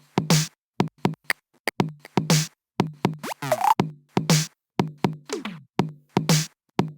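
A Google Pixel (1st generation) ringtone playing: an electronic drum-machine loop of sharp hits with a low thump, and pitch sweeps that slide down and up, repeating about every two seconds.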